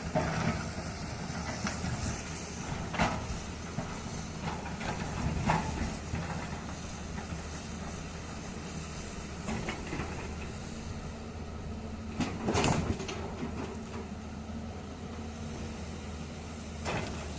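Heavy diesel engine running steadily at a low, even pitch, with scattered knocks and clanks and one louder burst of noise about twelve seconds in.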